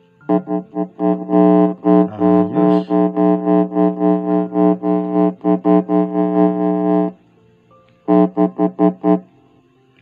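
JBL Cinema SB250 soundbar speakers giving out a loud, stuttering buzz, a steady low hum cut on and off several times a second, as a fingertip touches and leaves the unconnected audio input plug. It runs for about seven seconds, stops, then comes back as a short run of five or six pulses near the end. This touch test shows the amplifier and the newly fitted speakers are working.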